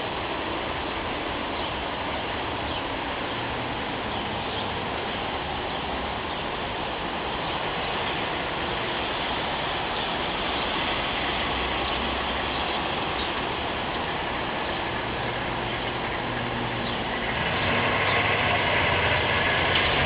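Steady hiss of wind and rain, with a faint low rumble underneath; it grows louder about seventeen seconds in.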